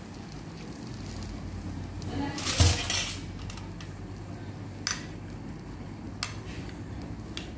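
Kitchenware clatter: a stainless steel bowl knocks and rattles as it is put down about two and a half seconds in, the loudest sound. A metal spoon then clinks sharply twice against a glass baking dish, with a fainter tap near the end.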